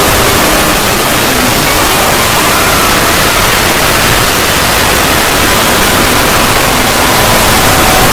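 Loud, steady rushing noise of a 'void' ambience sound effect, with faint held tones that shift pitch every second or two beneath it.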